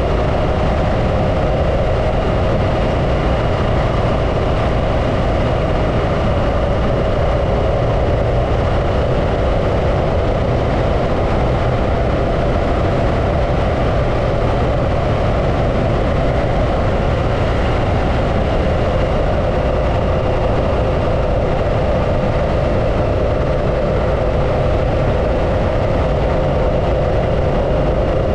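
Harley-Davidson Pan America's V-twin engine running at a steady pace while the bike is ridden, with a constant low rumble of riding noise and no changes in revs.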